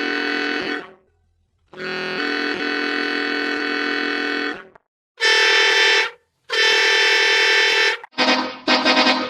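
Edited bus horn blasts, each a steady multi-tone horn chord: one ends under a second in, a long blast of about three seconds follows, then two shorter, brighter blasts. Near the end the horn is chopped into quick repeated pulses.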